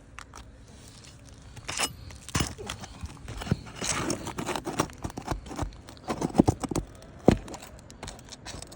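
Metal pry tool clicking, knocking and scraping against nails and old asphalt shingles as rusted roofing nails are worked out, with brittle shingle crackling and tearing. An irregular run of sharp clicks and knocks, the loudest two near the end.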